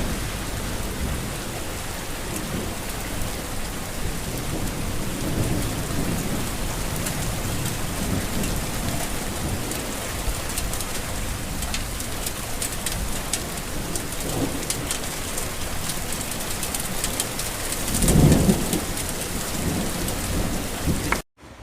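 Steady heavy rain falling, with low rolls of thunder rumbling through it; the loudest roll comes about three-quarters of the way in, and the sound cuts off abruptly just before the end.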